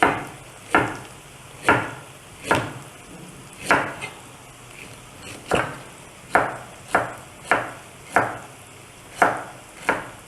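Knife slicing ginger on a wooden cutting board: about a dozen sharp chops, unevenly spaced at roughly one a second.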